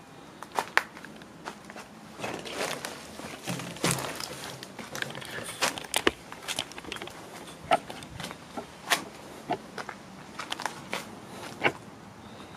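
Footsteps crunching over dry debris and undergrowth, with many irregular sharp crackles and clicks and a denser patch of crunching a couple of seconds in.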